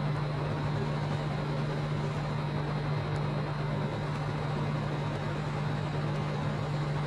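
Steady street traffic noise with a constant low hum running under it.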